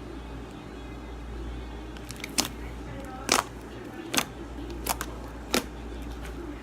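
Sticky slime mixed with modelling clay being squeezed and handled, giving five sharp pops spread over the last few seconds over a low steady hum.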